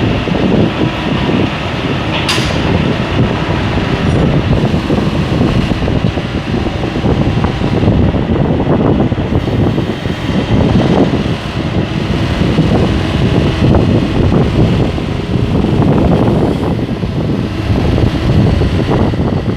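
Nissan S&B20 backhoe's engine running steadily, with a single sharp click about two seconds in.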